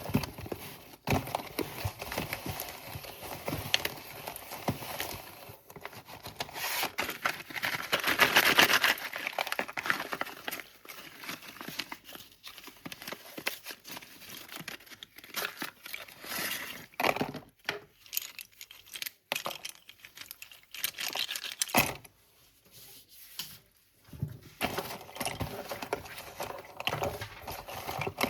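Crinkling and tearing of packaging as a pack of slate pencils is unboxed: many small clicks and rustles in spurts, with a short pause about 22 seconds in.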